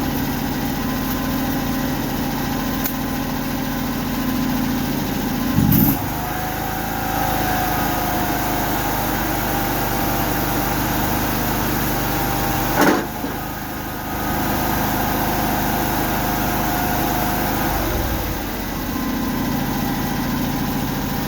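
Mini skid steer's small engine running steadily, with a loud clunk about six seconds in and a sharp knock about thirteen seconds in.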